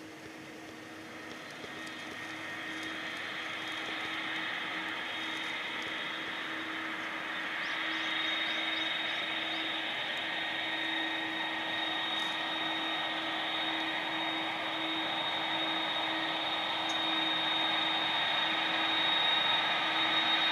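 An Airbus A330-300's General Electric CF6-80E1A4 turbofans running at low taxi power: a steady rushing noise with a high, shrill whine, the sound typical of CF6-series engines. It grows louder over the first several seconds as the jet turns to line up, then holds steady.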